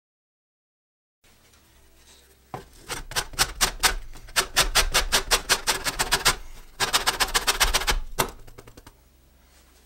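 Grapefruit zested on a stainless steel box grater: the peel is rasped quickly up and down the blade, about five strokes a second. It starts about two and a half seconds in and pauses briefly near the middle.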